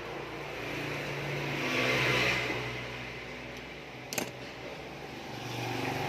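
A motor hum that swells and fades, louder about two seconds in and again near the end, with a single sharp click about four seconds in.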